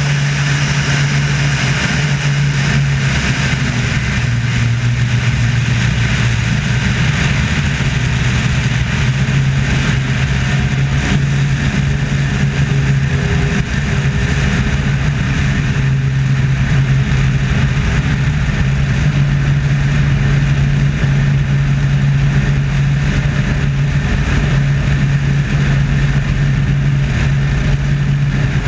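Wolf Pitts Pro aerobatic biplane's piston engine and propeller running in flight with a steady deep drone, heard from a camera mounted outside on the wing with airflow rushing over it.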